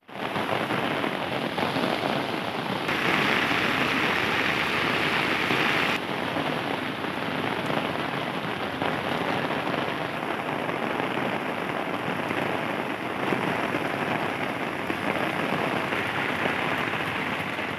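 Heavy rain pouring onto a wet paved street, a steady dense hiss that shifts slightly in tone a few times.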